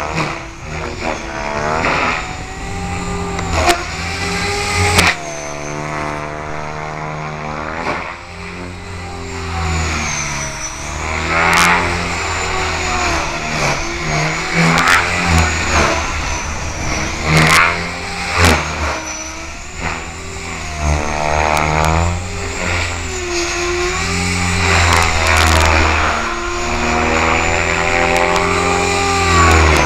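Align T-rex 550 electric RC helicopter in flight: its motor and main rotor drone and whine, the pitch repeatedly rising and falling as it manoeuvres, with a few sharp clicks along the way.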